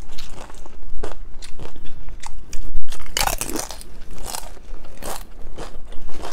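Crunching and chewing of a tortilla chip dipped in salsa, a run of short sharp crunches with the loudest about three seconds in.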